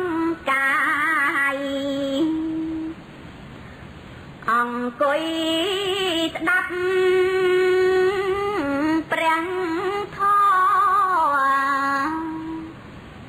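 A woman chanting Khmer smot, a Buddhist verse recitation, solo: long held notes ornamented with a wavering vibrato and melodic turns, in sung phrases with a pause of about two seconds after the first.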